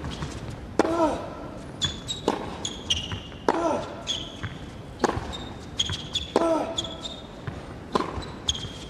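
Tennis rally on an indoor hard court: six racquet strikes of the ball, about one and a half seconds apart, with one player grunting on every other shot and shoes squeaking on the court between strikes.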